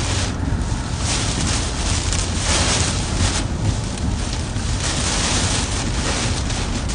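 Strong gusty wind rushing around a moving car, with a steady low rumble of the car on the road underneath; the hiss swells and falls several times with the gusts.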